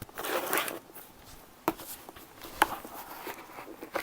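Cardboard book mailer being torn and worked open by hand: a short rip in the first second, then a couple of sharp snaps and light crackling of the cardboard.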